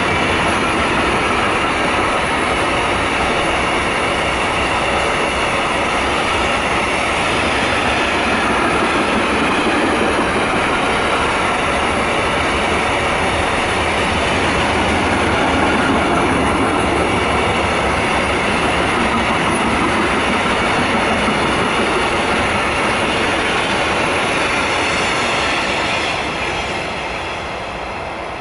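Long intermodal container freight train passing at speed: the steady rumble and clatter of its wagon wheels on the rails, easing off near the end as the wagons draw away.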